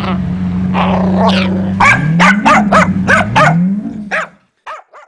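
Jack Russell terrier barking in a rapid run of about eight sharp barks from about two seconds in, then two short yips near the end. Under the first part runs a steady low drone that twice rises in pitch.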